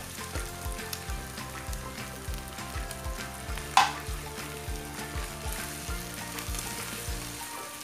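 Ham and mushrooms sizzling in a hot nonstick wok as evaporated milk is poured in and stirred with a plastic spatula, the spatula scraping the pan. One sharper knock a little under four seconds in.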